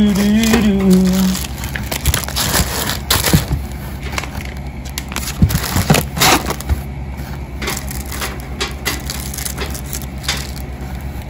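Packing materials in a cardboard shipping box being pressed and moved by hand, in an uneven run of crackles, crunches and scrapes: blue crinkle-paper shred, foam packing peanuts and kraft paper. A woman's voice is heard briefly at the start.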